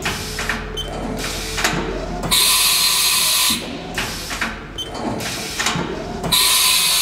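Haas VF5 side-mount automatic tool changer cycling through tool changes: clicks and clunks of the changer arm and spindle, broken twice, about two and a half seconds in and again near the end, by a loud hiss of air lasting a little over a second as the tool is released from the spindle.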